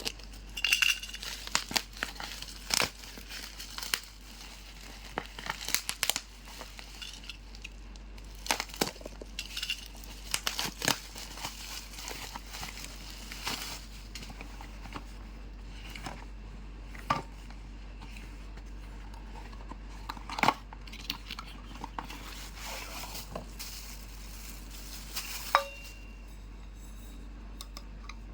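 Packaging being crinkled and torn open by hand, with irregular crackles and occasional sharp knocks as a mini tumbler is unwrapped and handled.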